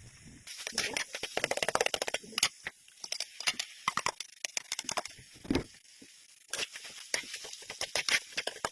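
Kitchen handling noises while cooking pancit canton: a dense, irregular run of crackling, rustling and clicking, with one dull thump about five and a half seconds in.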